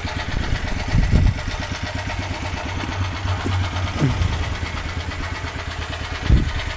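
Small portable generator's engine running steadily on HHO gas from an electrolyzer, in a very lean condition, with a couple of dull knocks about a second in and near the end.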